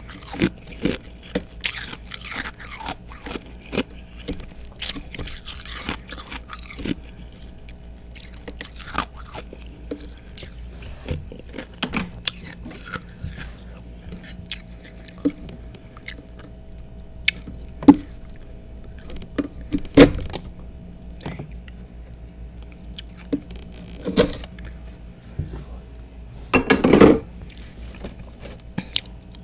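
Close-up crunching and chewing of freezer frost and thick chunks of ice: irregular crisp crunches with a few louder bites, and a longer burst of heavy crunching near the end.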